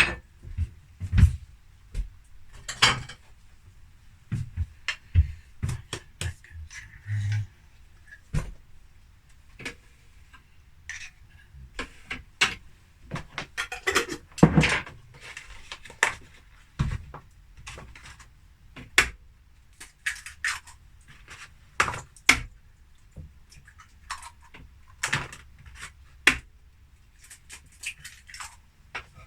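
Kitchen cooking clatter: pans, dishes and utensils knocking and clinking at irregular moments, some sharp clinks standing out louder than the rest.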